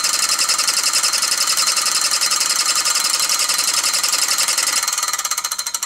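A small homemade 12-volt DC tabletop air compressor and a Mamod Minor 1 oscillating steam engine running on its air, a fast, even mechanical chatter. About five seconds in, the compressor's power is cut, and the rhythm slows and fades.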